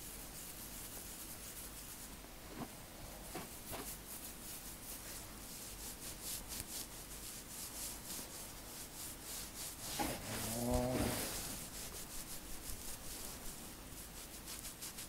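Fingertips rubbing and massaging over oiled cornrow braids on the scalp: a steady run of soft, scratchy rubbing strokes. About two-thirds of the way in, a short pitched sound stands out above the rubbing as the loudest moment.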